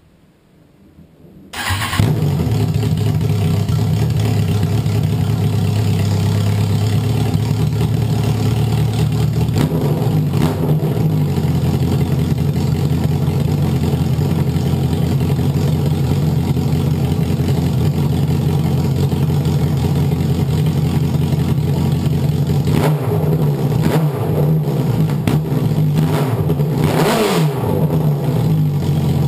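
Kawasaki Ninja ZX10R's inline-four engine starting about a second and a half in, then idling loud and steady. It is running through an open header with the midpipe disconnected.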